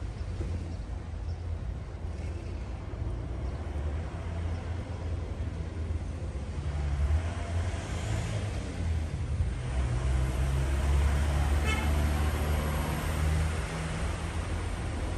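Street traffic: a steady rumble of road vehicles, with a passing vehicle growing louder about halfway through and fading near the end.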